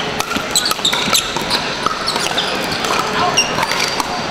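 Pickleball paddles hitting the plastic ball during rallies, a string of sharp pocks from this and neighbouring courts, echoing in a large hall over a murmur of voices.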